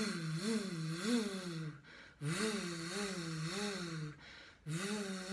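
A woman's voice buzzing a sung "vvv" in a vocal warm-up, the pitch going up and down in short turns. There are three phrases, with a quick breath in before the second and the third.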